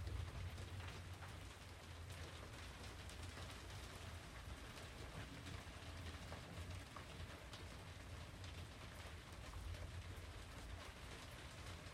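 Faint steady hiss with a low rumble and scattered light ticks.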